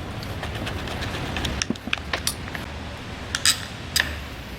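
Metal hand tools clinking on a motorcycle's handlebar master cylinder clamp as a Torx wrench works its bolts loose: scattered sharp metallic clicks, the loudest two near the end.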